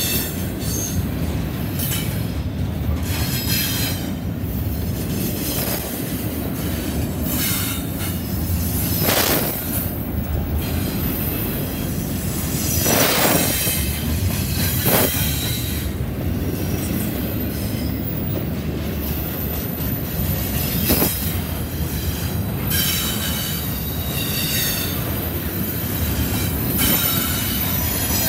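Double-stack intermodal freight train passing close by, its well cars rolling over the rails with a steady rumble. Intermittent high metallic squeals come and go, and a few sharp bangs fall several seconds apart.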